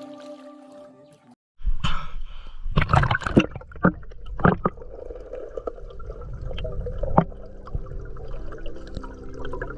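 Water splashing and sloshing in several sharp bursts, with a low rumble. Soft background music plays at the start, drops out for a moment, and returns under the water sounds.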